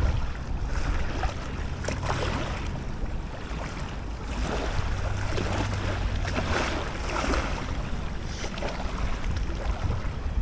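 Wind rumbling on the microphone, with small waves lapping at the water's edge.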